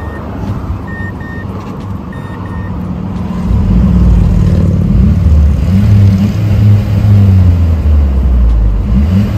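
Mazdaspeed3's turbocharged four-cylinder heard at its stock exhaust, being revved while parked: about three seconds of idle, then raised revs that rise and dip repeatedly as the engine is held against its rev limiter. Pairs of short electronic beeps sound over the idle at first.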